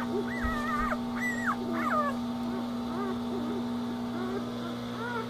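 Week-old Portuguese Water Dog puppies whimpering and squeaking: a run of short, high squeals, many in the first couple of seconds and a few more near the end, over a steady low hum.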